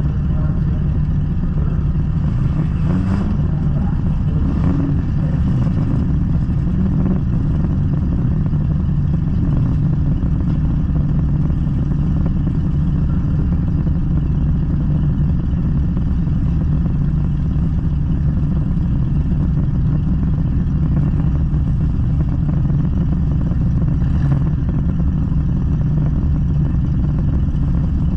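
Junk race car's engine idling steadily, heard from inside the car, with a brief rise in engine pitch about three seconds in.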